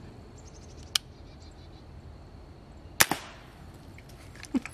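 Two suppressed shots from an AR-15 with a CMMG .22 LR conversion kit firing subsonic .22 rounds, about two seconds apart: a sharp crack about a second in, then a louder one with a short trailing echo.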